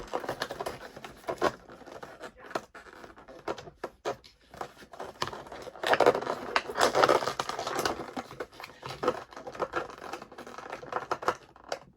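Cardboard box packaging being handled and pulled at: irregular rustling, crinkling and scraping with scattered clicks, busiest around the middle, as a figure taped into the box is worked loose.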